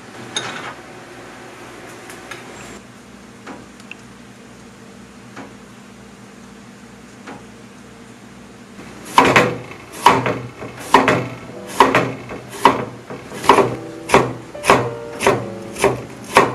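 Kitchen knife slicing a cucumber on a wooden cutting board: sharp, evenly spaced knocks of the blade on the board, starting about nine seconds in at a little over one a second and growing quicker. Before that, only faint room tone with a few small clicks.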